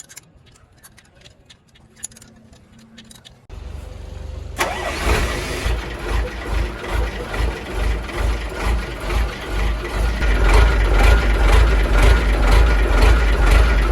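Big truck's diesel engine starting about three and a half seconds in and then running, at first with a regular pulsing in its sound, steadier and louder in the last few seconds. A few faint clicks come before it.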